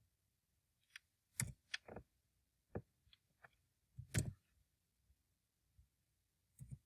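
Sparse clicks of a computer mouse and keyboard keys while code is edited, about ten in all with short silences between, the loudest about four seconds in.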